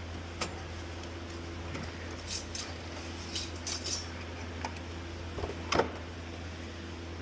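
Scattered light clicks and clinks of a car radio head unit being handled and test-fitted into a dash opening, over a steady low hum; the loudest knock comes a little before the end.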